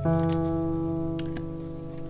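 Background music: one sustained chord that begins at the start and slowly fades. A few faint crisp clicks from a small knife cutting into a slab of sesame brittle come in near the start and again after about a second.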